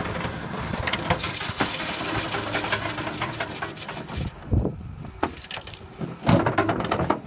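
Dryer vent cleaning in a lint-clogged duct: a steady clatter of rattling and knocking with a hissing rush of air. The hiss cuts off about four seconds in, followed by a few heavier thumps.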